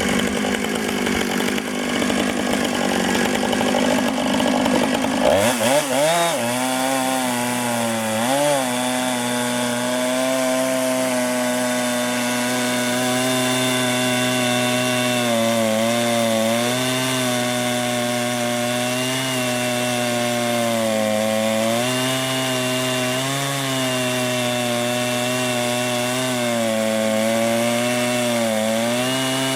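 Chainsaw on a chainsaw mill ripping a cedar log into planks. About five seconds in the engine pitch climbs and then holds steady at high revs, dipping slightly and recovering every few seconds as it works through the cut.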